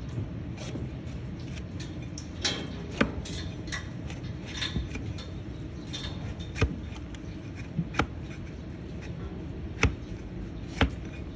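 Irregular sharp clicks and knocks, about ten spread over several seconds, of a hoof-trimming blade cutting into a donkey's hoof, over steady low background noise.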